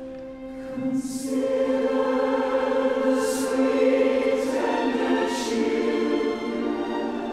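Background music of a choir singing slow, held notes, swelling about a second in, with the hiss of sung consonants standing out a few times.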